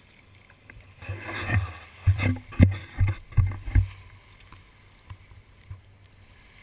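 Water rushing and slapping along a sailboat's hull, picked up by a GoPro held low over the side on a boat hook, with a run of dull low thumps about two to four seconds in as the water buffets the camera.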